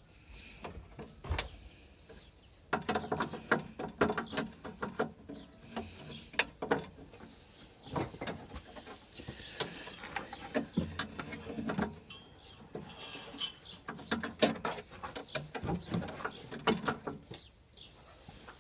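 Irregular clicking and clattering of small hard parts being handled, in dense bursts with short pauses.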